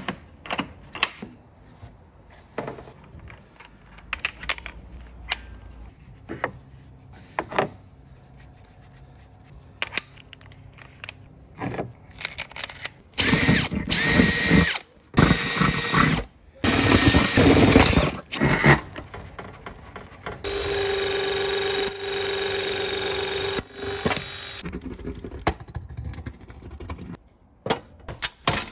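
Clicks and knocks of a plastic tool case being opened and tools handled, then a power drill boring a pilot hole through a steel back box in two loud stretches about halfway through. A Milwaukee Force Logic cordless hydraulic knockout punch then runs with a steady motor whine for about three seconds as it punches a hole through the steel box, followed by more clicks of handling.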